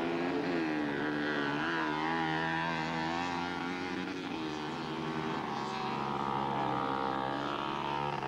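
Small mini bike engines revving as the bikes race, their pitch rising and falling with the throttle.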